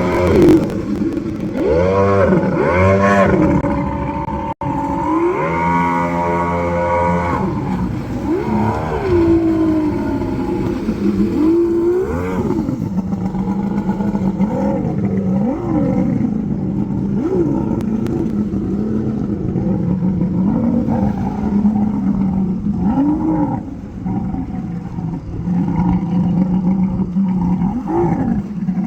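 Engine of a homemade scrap-aluminum jet boat running, revved up and down again and again over a steady hum.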